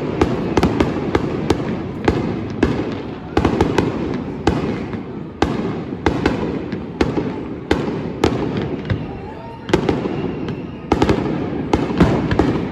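Aerial fireworks going off in quick succession: a dense run of sharp bangs over a continuous rumble and crackle. The reports thin briefly near the middle, then a fresh cluster of loud bangs hits about eleven seconds in.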